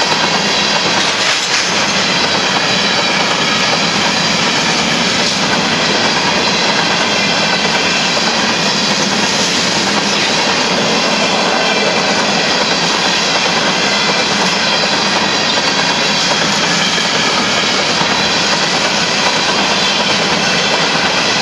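Union Pacific sand train of empty covered hopper cars rolling past: a loud, steady clatter of steel wheels on rail.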